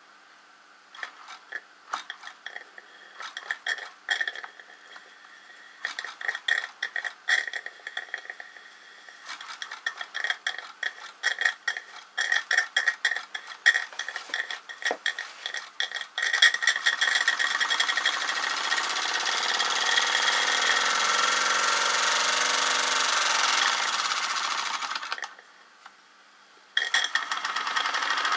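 Gas-fired Mercer Type 2 live-steam model traction engine running. For the first half it turns over in irregular puffs and clicks. It then settles into a continuous, fast steam exhaust hiss, which cuts off for about two seconds near the end and then resumes.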